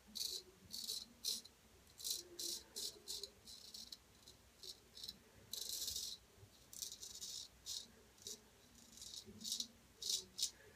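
Gold Dollar 800 straight razor cutting lathered stubble on the upper lip and chin: short, crisp scraping strokes, about two or three a second in uneven runs.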